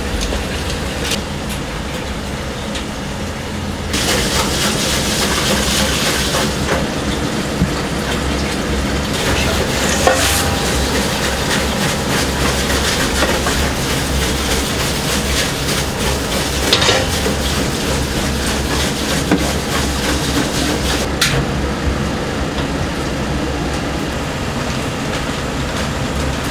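Kitchen work on a pot of niboshi stock: a steady low rumble with a hiss of liquid that grows louder about four seconds in, and a few sharp clinks.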